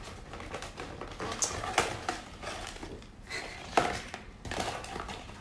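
Small cosmetic items and packaging being handled in an opened gift box: light rustling with scattered sharp clicks and knocks.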